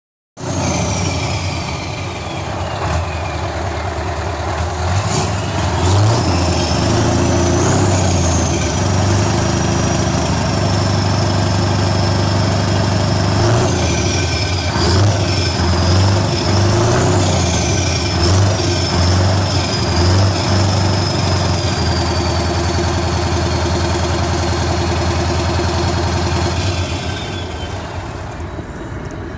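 Scania V8 diesel truck running on an open, straight-through exhaust pipe, loud, its engine note rising and falling several times with a high whistle that follows the revs. It then holds a steadier note and drops in loudness near the end.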